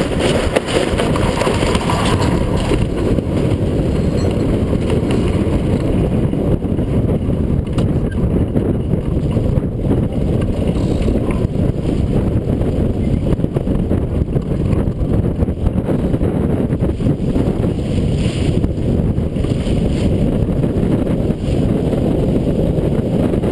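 Strong wind buffeting the microphone of a boat-mounted camera on a sailboat in a gusty race, a steady loud rumble.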